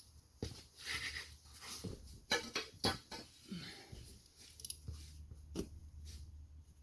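Irregular clicks and knocks of hand tools and small metal parts being handled during a chain roller install, the two sharpest about halfway through, over a low steady hum.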